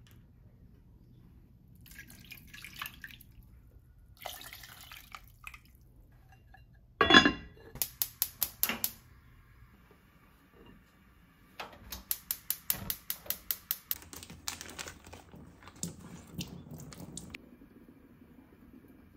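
Rice-rinsing water poured in two short goes over daikon in an enamelled cast-iron pot, then a heavy knock as the lid goes on. After that come two runs of rapid, evenly spaced ticks from a gas stove's igniter, lighting the burner under the pot.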